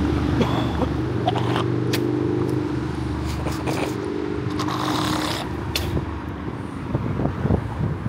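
A motor vehicle's engine running close by on the street, a steady low hum that fades out about six seconds in. A few sharp clicks and a short hiss sound over it.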